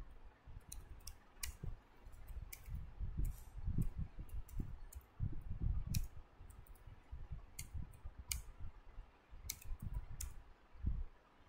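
Computer keyboard being typed on: irregular keystroke clicks in short runs, each with a soft low thud.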